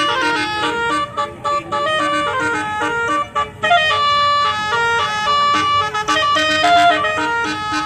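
Telolet multi-tone horn playing a tune: several horn trumpets sounding held notes that change pitch in steps, with short breaks between phrases.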